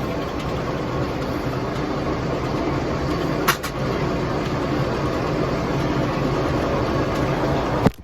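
Massey Harris 44 tractor engine running steadily while powering a 42-inch Bell sawmill. There is a short sharp click about three and a half seconds in, and the sound drops out abruptly just before the end.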